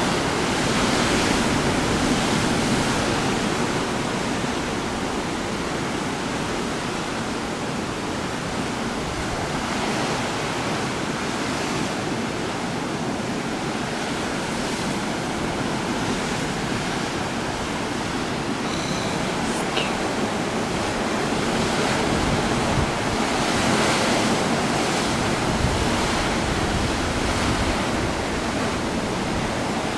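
Rough Pacific surf breaking and churning over rocky boulders: a steady wash of noise that swells and eases as the waves come in.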